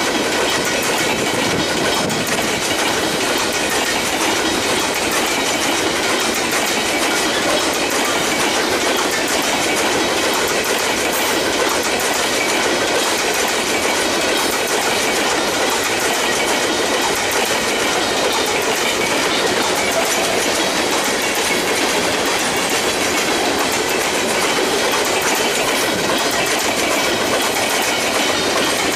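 Empty covered hopper cars of a BNSF grain train rolling past, their steel wheels clattering steadily on the rails as the train picks up speed.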